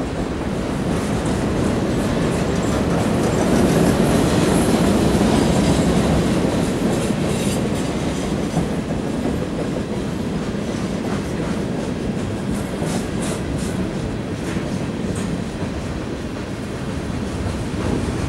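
Freight train cars rolling past close by: a steady rumble and clatter of steel wheels on rail, loudest a few seconds in, with a few brief high-pitched squeaks.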